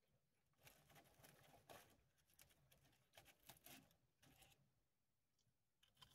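Very faint crinkling and crackling of a paper food wrapper as a hard, crunchy churro is handled and broken by hand, in irregular bursts for about four seconds and again briefly near the end.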